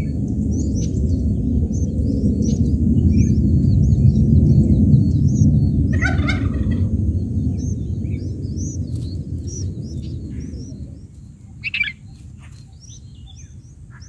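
Bulbul nestlings begging with many short high chirps, with a louder call about six seconds in and another near the end. Underneath is a loud low rumble that dies away about eleven seconds in.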